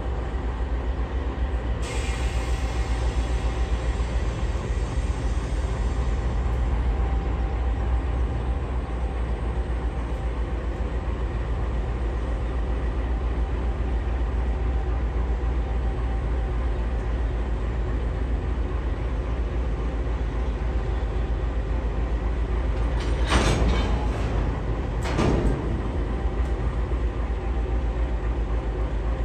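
Diesel train running with a steady low rumble. A hiss starts about two seconds in, and two short, louder noises come near the end.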